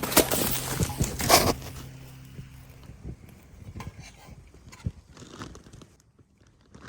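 Wrapper being crinkled and torn close up, loudest in the first second and a half, then lighter rustling and clicks.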